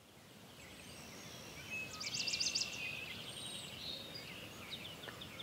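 Woodland ambience: small birds chirping and singing over a steady background hiss, with a fast run of repeated high notes about two seconds in.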